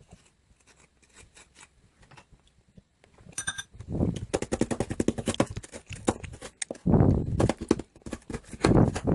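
A short electronic beep, then a blender starts and crushes ice: a rapid, loud clatter of ice pieces striking the jar, surging in waves.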